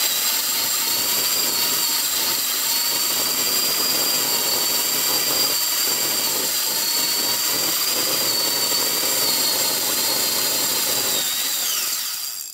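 Corded electric drill running at speed, spinning an empty spool to wind fishing line off a spinning reel: a steady high whine that wavers a little. Near the end the pitch falls as the drill is let off, and it stops.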